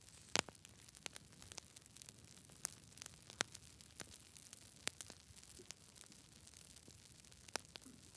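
Campfire crackling: irregular sharp pops and snaps from burning wood over a low steady hiss, with a few louder pops.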